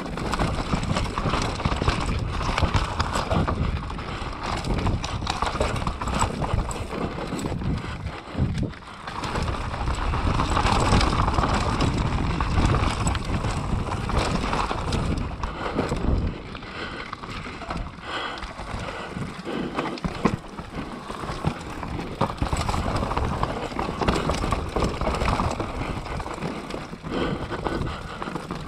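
Mountain bike riding down a rough dirt trail: the tyres crunch over dirt and rocks, and the bike rattles and knocks steadily over the bumps.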